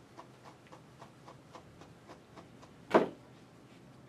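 A grooming brush raking quickly and regularly through a dog's coat, about four strokes a second. The strokes stop with a single sharp knock about three seconds in.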